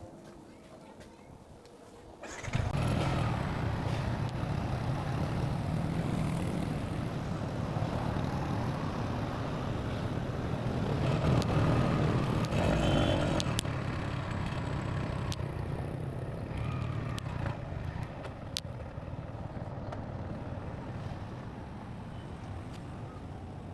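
A vehicle engine starts suddenly about two seconds in and then runs steadily with road noise as the vehicle travels, growing louder for a stretch in the middle.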